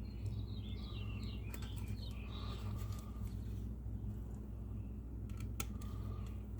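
Birds chirping in quick, wavering bursts during the first few seconds, over a steady low hum, with a few sharp clicks about a second and a half in and near the end.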